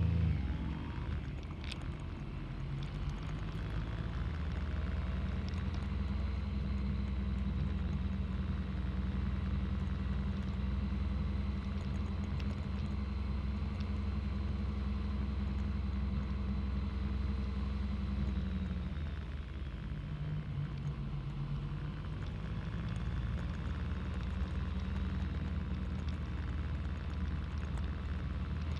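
Yamaha MT-09's three-cylinder engine running steadily as the motorcycle rides. About two-thirds of the way through, the engine note drops and then settles at a new pitch.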